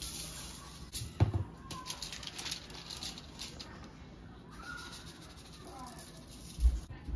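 A cat meowing a few times, short calls that fall in pitch, with a couple of dull knocks.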